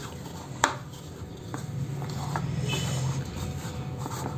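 Hands mixing and squeezing a crumbly pearl millet and green gram laddu mixture in a bowl, with one sharp tap against the bowl about half a second in, over a low steady hum.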